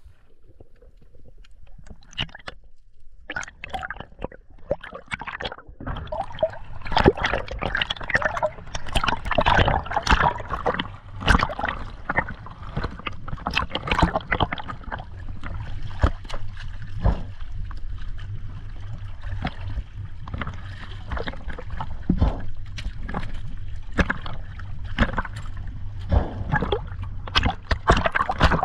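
Water sloshing and gurgling around the camera, with many irregular small clicks and pops. A low rumble runs underneath from about six seconds in.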